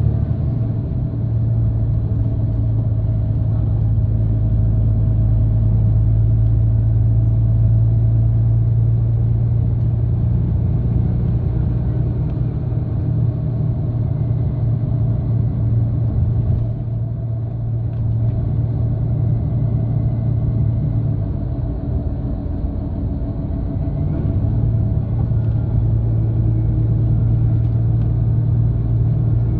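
Steady low drone and rumble of a moving vehicle, heard from inside its cabin: a constant deep hum with fainter steady tones above it, running evenly with only slight dips in level.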